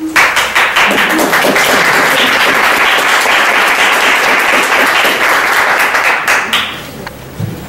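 Audience applauding, a dense clatter of many hands clapping that dies away about six and a half seconds in.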